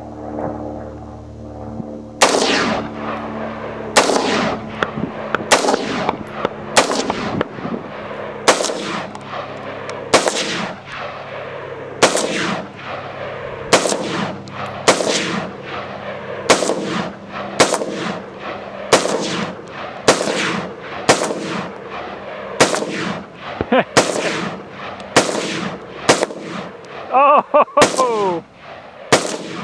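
Bushmaster XM15 AR-15 rifle firing about two dozen semi-automatic shots at a steady pace of roughly one a second, starting about two seconds in. Each shot is a sharp crack trailing a short echo.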